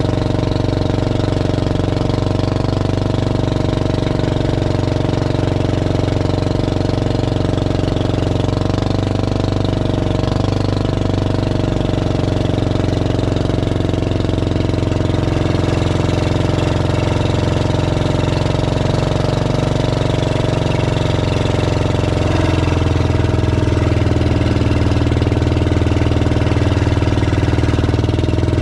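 Small boat engine running steadily under way, picking up slightly in pitch and loudness about three-quarters of the way through.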